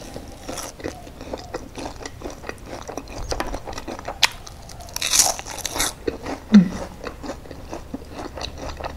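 Close-up crunching and chewing of crispy deep-fried egg: quick crackly crunches throughout, with one loud crisp bite about five seconds in.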